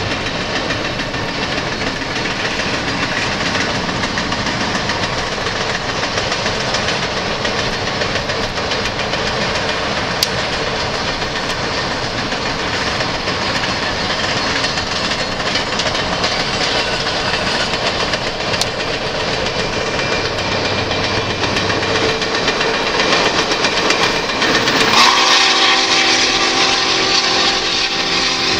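Union Pacific 844's steam whistle sounding a chord of several notes at once for about three seconds near the end. Before it, a steady rushing noise of the train running and the car pacing it at speed.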